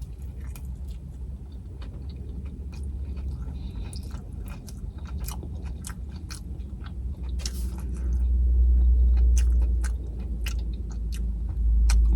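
Close-miked chewing of a White Castle slider, with many short wet mouth clicks. A low rumble swells twice in the second half.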